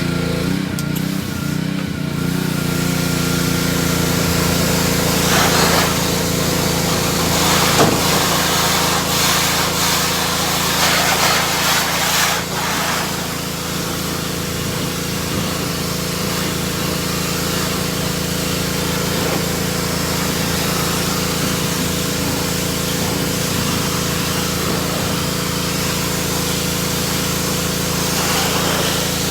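Petrol pressure washer's small engine running steadily, with the hiss of the water jet spraying. The spray hiss swells and falls several times in the first half.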